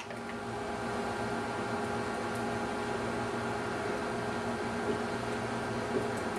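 A steady hum with hiss, like a running fan or appliance, with two faint soft knocks near the end. No gulping or pouring stands out above it.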